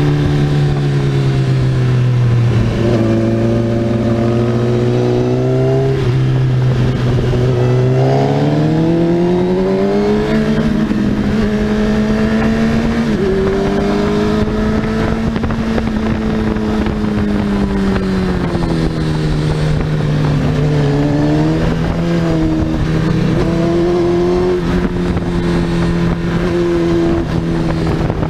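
Sport motorcycle engine heard from on board, its pitch climbing under acceleration and falling as it slows for the bends, with sudden drops in pitch at the gear changes, about three of them in the first half.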